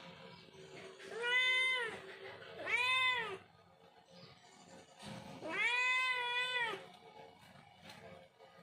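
Domestic cat meowing three times, the last call the longest.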